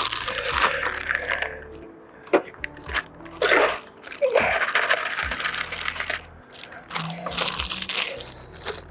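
Plastic bait tubs being handled and opened: irregular rustling and crinkling with sharp clicks of lids and boxes.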